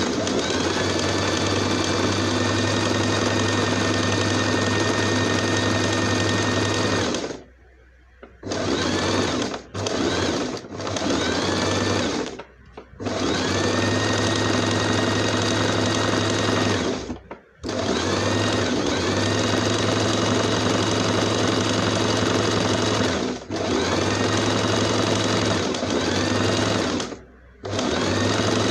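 Electric domestic sewing machine stitching a hem seam through folded fabric. The motor runs in long steady stretches, stops briefly about five times with a few short bursts in between, and whines up to speed each time it restarts.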